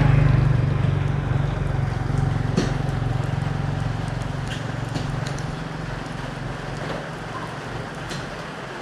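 A vehicle engine's low hum, loudest at the start and fading steadily over several seconds, with a few light clicks on top.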